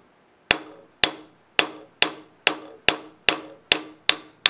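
A hammer strikes a drill bit used as a punch, driving an old rivet out of a tractor brake shoe. About ten sharp metal-on-metal blows come a little over two per second, each ringing briefly.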